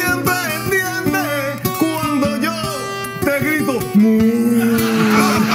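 A man sings to the plucked accompaniment of a Puerto Rican cuatro. About four seconds in he holds a long final note, and the studio audience breaks into applause over it.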